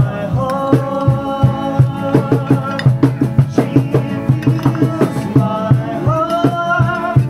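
Music with a quick, steady drum beat under long held melody notes.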